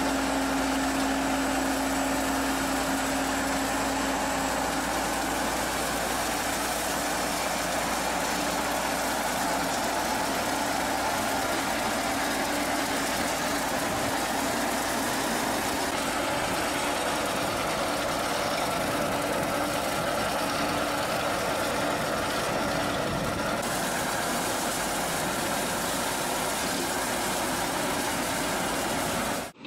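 Tractor engine working steadily as it drives a single-wheel rotary ditcher, its spinning cutter wheel churning through the ditch bank and flinging out soil and grass in a continuous mechanical din.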